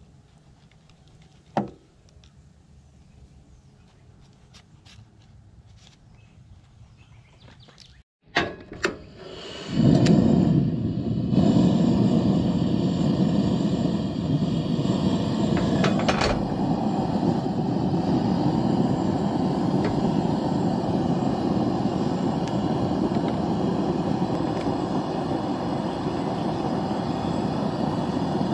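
Propane camp stove burner running with a steady rushing noise under a cast iron skillet, starting about a third of the way in just after two sharp clicks. Before that it is quiet apart from a single click.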